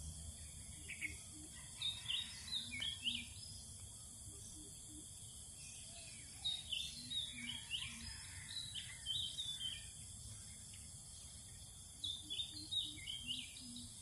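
Birds calling in three bouts of quick, chirpy notes, over a steady high hiss.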